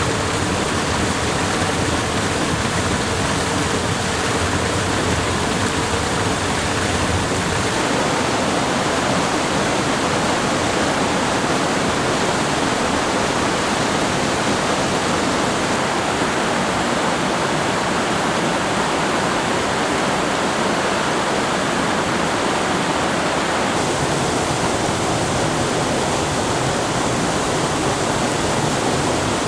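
Waterfall: a steady, dense noise of falling water with no break, its tone shifting slightly about a quarter of the way in and again near the end.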